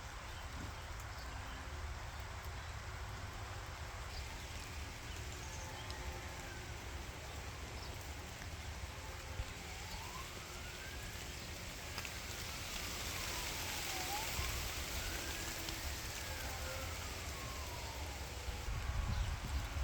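Steady rain falling, with a low rumble underneath. A siren wails in the background, its pitch slowly rising and falling in long sweeps through the middle of the stretch.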